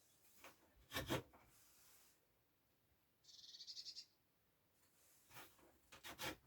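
Quiet knocks and clicks from handling a wooden cupboard being set in place: two sharp knocks about a second in and a few lighter clicks near the end. About three seconds in there is a brief rapid, high rattle.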